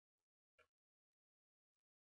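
Near silence, with one faint, short click a little over half a second in.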